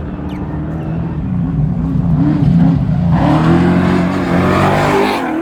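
Off-road race vehicle's engine revving up and down in quick swings. From about three seconds in, a loud rushing noise joins it as the vehicle comes close, then dies away just at the end.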